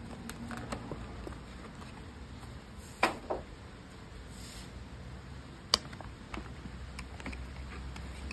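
Hands handling a carded soft-plastic crab lure and its packaging: a few sharp plastic clicks and snaps, the loudest pair about three seconds in and another near six seconds, with smaller ticks, over a low steady hum.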